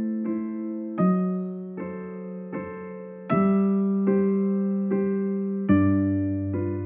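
Slow background piano music, with notes struck about once a second and left to ring and fade. A lower bass note comes in near the end.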